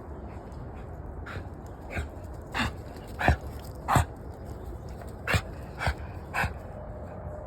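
Dog coughing in a fit of about eight short coughs, five in quick succession and then three more after a brief pause, loudest in the middle of the run.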